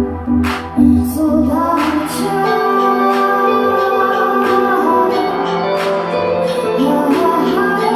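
Live band music: a few drum hits, then sustained instruments under a woman's wordless sung vocal.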